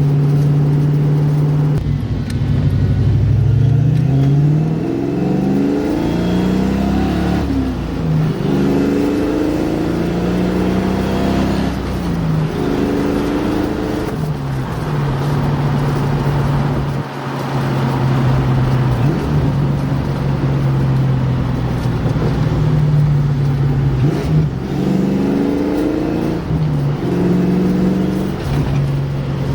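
1989 Ford Mustang engine accelerating hard through the gears: its pitch climbs, then drops back at each upshift, several times over. In the middle it settles to a steady cruising note, then pulls up through the gears again near the end.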